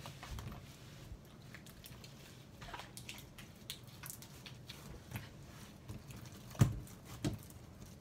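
Red glitter slime being handled and stretched, giving soft wet squishes and small sticky clicks, with two louder pops near the end.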